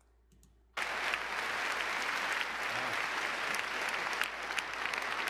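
A large audience applauding, a dense steady clatter of many hands clapping that starts abruptly about a second in and keeps going.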